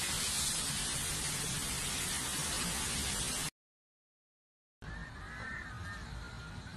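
Torrential storm rain and wind, a loud, dense and steady rushing that cuts off abruptly about three and a half seconds in. After a second of silence a quieter rain sound returns, with a faint high tone that wavers up and down.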